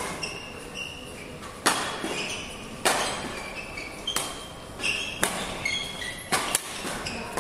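Badminton rally: about five sharp racket strikes on the shuttlecock, roughly one every second, with short high squeaks of shoes on the court floor between them.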